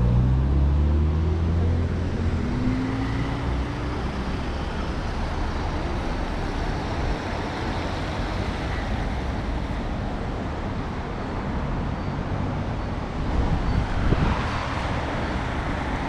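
Street traffic: a motor vehicle's engine accelerates over the first few seconds, its pitch rising, then steady road noise, with another vehicle passing louder near the end.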